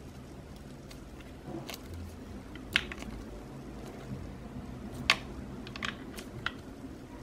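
Hands squeezing and handling a rubber stress ball keychain: scattered sharp clicks and taps, the loudest about three and five seconds in, over a low steady hum.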